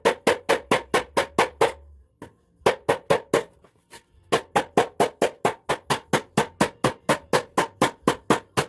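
Hammer striking sheet steel to bend over the end of a deck panel that the metal brake couldn't reach: quick ringing blows, about five a second, in three runs with short pauses about two and four seconds in.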